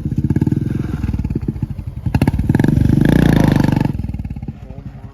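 Royal Enfield Classic 350's single-cylinder engine running with a rapid, even beat, getting louder about two and a half seconds in and dropping back near the end as the throttle eases off.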